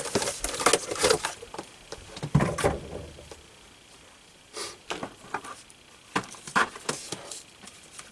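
Scattered clicks, taps and knocks of CPU cooler parts and their packaging being handled and set down, with a quieter pause in the middle.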